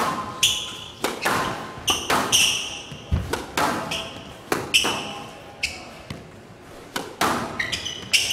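Squash rally: sharp knocks of the ball off rackets and walls, about one every half second to second, with short high squeaks of shoes on the court floor between them.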